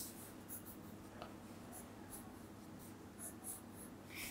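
Pencil scratching on sketchbook paper in a series of short, faint strokes as small triangles are drawn.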